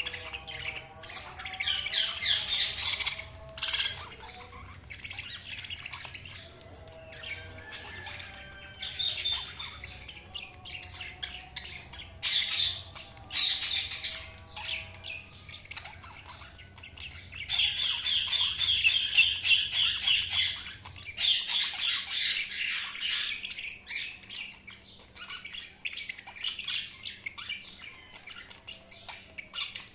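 Budgerigars chattering: quick chirps and squawks come in spells, with a long stretch of unbroken warbling about two-thirds of the way through.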